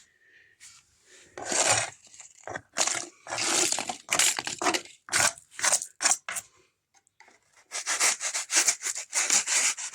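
Repeated rough scraping and rubbing strokes in uneven bursts, with a short pause about seven seconds in: cured expanding foam being cleaned off the wooden floor around the injection holes.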